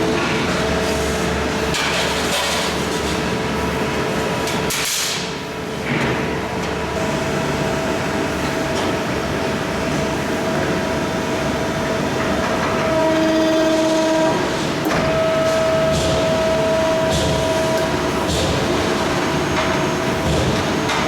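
A 250-ton, 5.5 m press brake bending steel plate in a sheet-metal shop: a steady machine noise with several held tones layered in and an occasional sharp knock. The noise dips briefly about five seconds in.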